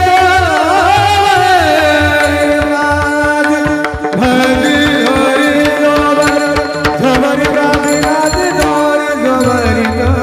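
Varkari kirtan devotional music: a singer's gliding voice over held accompanying notes and quick hand-drum strokes. The voice is plainest in the first two seconds.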